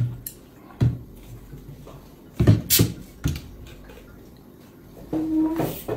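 Close-miked eating and drinking sounds: a series of short sharp wet clicks and knocks, about six in all, with a longer sound carrying a low hum near the end.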